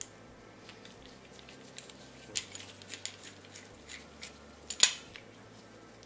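A few light clicks and taps of a bearing race installer's driver disc being fitted to its handle, the loudest about five seconds in.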